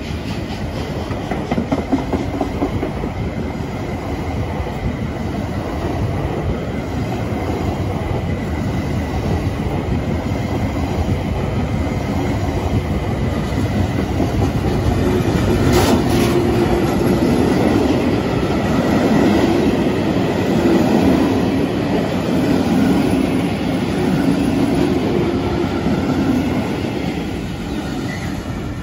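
Unpowered Class 701 electric multiple unit coaches being hauled slowly past, steel wheels clattering over the rail joints with a single sharp clank about halfway. Near the end a Class 66 diesel locomotive comes by, and the sound starts to fade.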